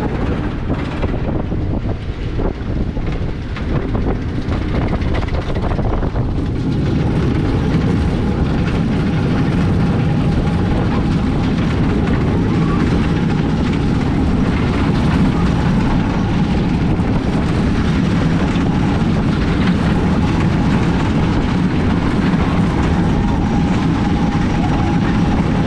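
Mack Rides steel bobsled roller coaster train running along its trough track: a loud, steady rumble of the wheels, with a few clicks at first, growing louder about six seconds in as the ride runs on.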